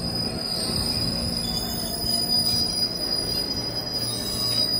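KRL commuter electric train braking to a stop at the platform: a steady high-pitched squeal over the rumble of the cars rolling past. The squeal fades out right at the end as the train halts.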